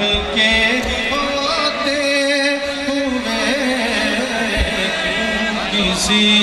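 Men's voices chanting devotional verses together, several voices overlapping with drawn-out, wavering notes.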